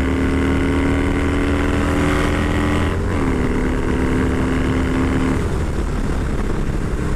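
2006 Harley-Davidson Dyna Low Rider's V-twin engine running at highway speed, with a steady low rumble and a steady whine over it. The note dips slightly about three seconds in, then holds lower before fading out about five seconds in.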